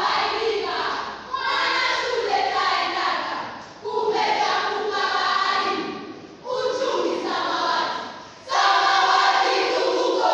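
A group of high-school students reciting a choral verse in unison, many voices chanting together in phrases of about two seconds, each ending in a short break; the last phrase, near the end, is the loudest.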